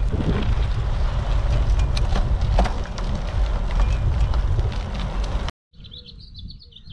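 Wind buffeting the microphone of a GoPro riding on a moving bicycle: a loud, steady low rumble with hiss. About five and a half seconds in, the sound cuts off abruptly and gives way to much quieter outdoor ambience with high, wavering chirping.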